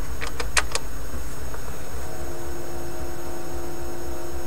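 BSR record-changer turntable running at 45 rpm with a low, steady rumble. It is running fast. A few light clicks come in the first second, and a steady tone comes in about two seconds in.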